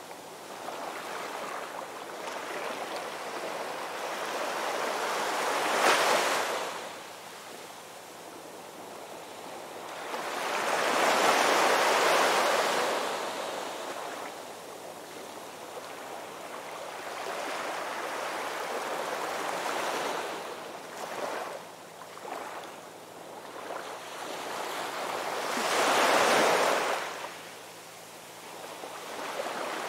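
Ocean waves breaking and washing onto a shore, swelling and falling every few seconds. There is a sharp break about six seconds in, a long, loud one around eleven to thirteen seconds, and another near the end.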